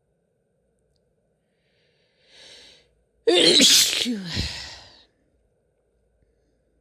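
A woman sneezes once, about three seconds in: a faint breath in, then a sudden loud sneeze whose voice falls in pitch as it trails off.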